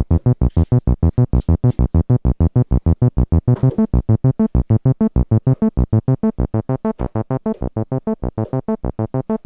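Donner B1 analog bass synthesizer (a TB-303 clone) with a sawtooth waveform, its arpeggiator on hold, playing a low bass arpeggio. The notes are short and rapid, several a second, in an even stream.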